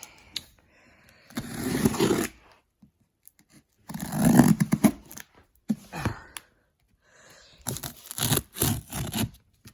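Cardboard firework boxes being handled, scraping and rustling against each other in three bursts.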